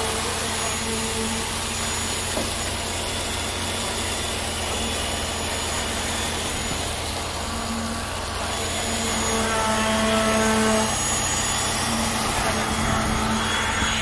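Concrete boom pump truck running steadily during an ICF wall pour: a constant engine-and-hydraulics drone with some tones coming and going, swelling a little about ten seconds in.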